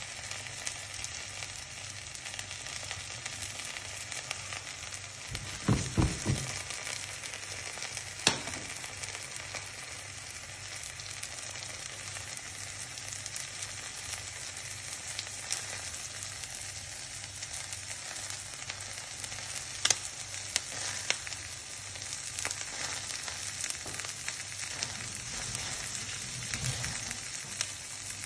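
Slices of common stinkhorn egg frying in butter in a stainless-steel pan, a steady high sizzle. A few dull knocks come about six seconds in, with scattered sharp clicks later.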